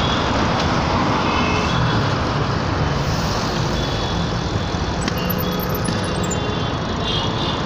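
City road traffic heard from a moving vehicle: a steady rumble of engines and tyres from motorcycles, auto-rickshaws and cars, with a few brief, faint high beeps over it.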